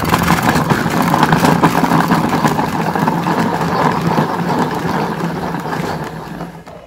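Electric vegetable chopper running, its motor humming steadily as the blades cut a whole potato to small pieces, with pieces clattering in the plastic bowl. It winds down and stops near the end.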